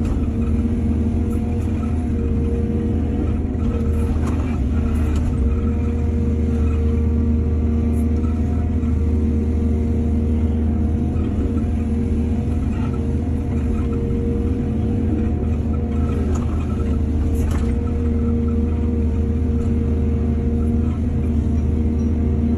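Heavy construction-machine diesel engine running steadily under load, with a few light knocks and clanks scattered through.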